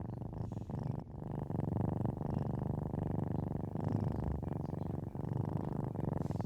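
Domestic cat purring steadily and close up, a continuous low rumble.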